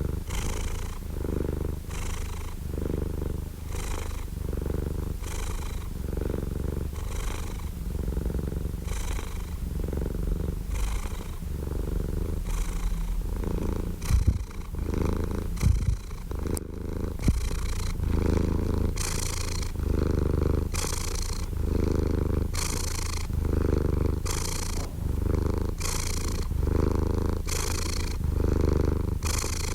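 Domestic cat purring close up, a steady rumble that swells and eases with each breath about once a second. A few brief knocks come around the middle.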